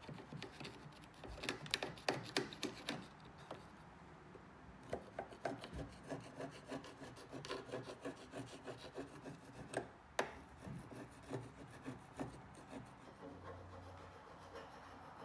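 Metal paint scraper scraping old urethane glass sealant off the steel window edge of a Toyota Land Cruiser 80 series tailgate, in runs of short quick strokes. It pauses briefly a few seconds in, and there is one sharper click about ten seconds in.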